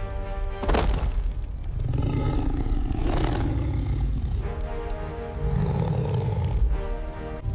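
Dramatic background music with a monster's roar sound effect laid over it, swelling twice, and a sharp hit about a second in.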